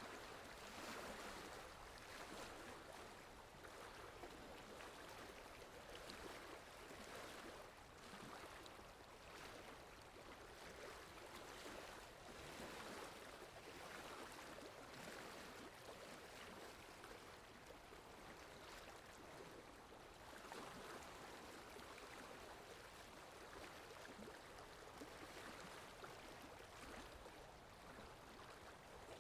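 Faint water lapping in soft, uneven swells, with wind.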